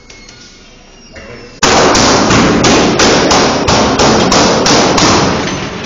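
Gunshots in a room: a rapid string of about a dozen shots, roughly three a second, starting about one and a half seconds in.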